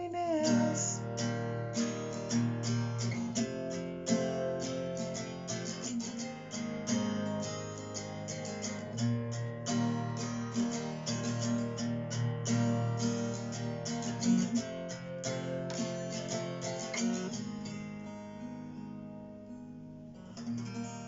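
Acoustic guitar strummed in steady chords as the song's instrumental ending, with no singing; about three-quarters of the way through the strumming thins out and the last chords ring out and fade.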